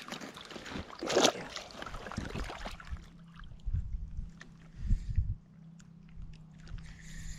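Water sloshing against a kayak's hull, with a short splash about a second in and a few low knocks around four and five seconds. A faint steady hum runs underneath from about three seconds on.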